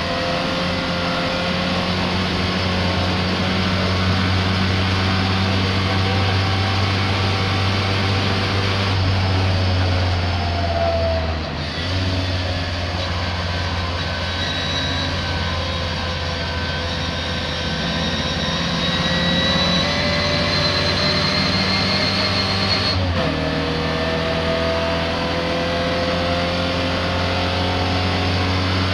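Racing car engine running hard under load on track, its note climbing slowly and then breaking off briefly twice, about a third and about four-fifths of the way through, as it shifts gear or lifts off; the engine is misfiring.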